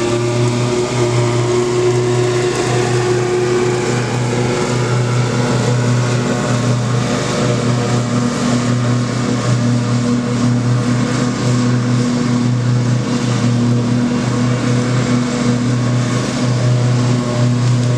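An engine running steadily at constant speed: a loud, unbroken low hum with overtones that holds its pitch.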